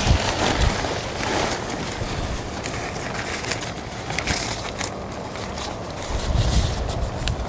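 Nylon tent curtains being handled: fabric rustling with crackling Velcro strips being pulled and pressed, and wind rumbling on the microphone in a few gusts.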